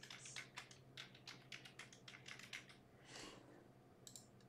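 Faint typing on a computer keyboard: a quick, irregular run of key clicks, a short soft rustle a little after halfway, then a few more clicks near the end.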